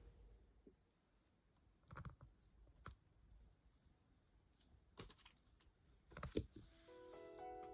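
Near silence broken by a few faint, sharp clicks and knocks, then soft background music with piano-like notes fading in near the end.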